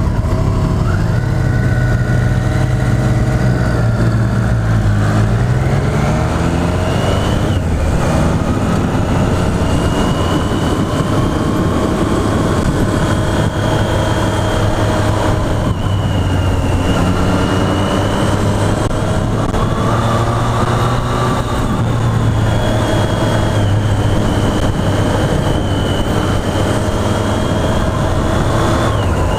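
Triumph Street Triple's inline three-cylinder engine pulling away and accelerating, its pitch rising over the first several seconds, then running at a steady cruise with small rises and falls as the throttle varies.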